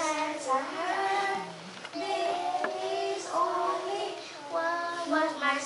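Young children singing a song together, with some notes held for about a second.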